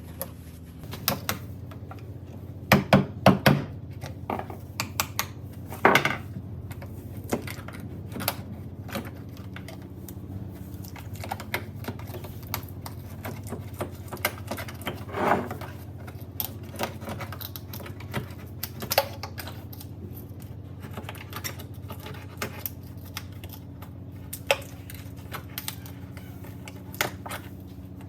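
Irregular light clicks and knocks over a steady low hum, with a cluster of louder knocks about three seconds in and single louder ones around six and fifteen seconds.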